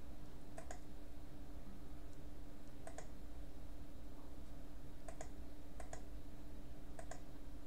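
Five soft, sparse computer mouse clicks, each a quick double tick, over a steady low hum.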